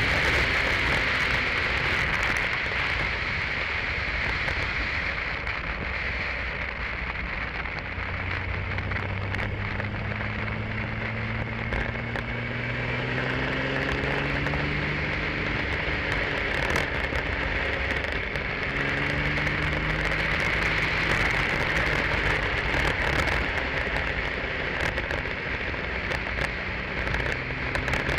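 Open-wheel single-seater race car at speed, heard from the cockpit. Heavy wind rush over the microphone covers most of it. Beneath it the engine note climbs slowly and then drops, two or three times, as the car accelerates and shifts.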